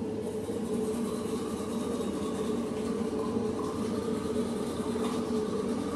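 A steady hum with an even hiss beneath it, unchanging throughout, like a running machine.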